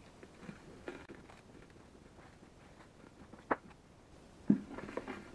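Folded paper raffle tickets dropped into an empty plastic tank: faint rustling and light ticks, with a sharp click about three and a half seconds in. About a second later comes a thump as the tank is handled, followed by denser rustling of the paper slips near the end.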